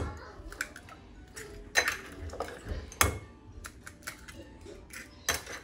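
Eggs cracked one after another into a glass mixing bowl: four sharp taps of shell against glass, spaced a second or more apart.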